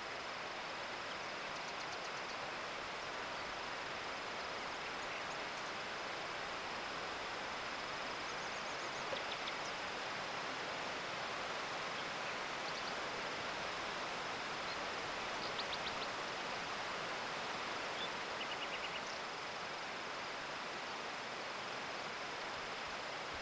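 Forest ambience: a steady, even rushing hiss with brief, high chirps and trills from small birds scattered through it.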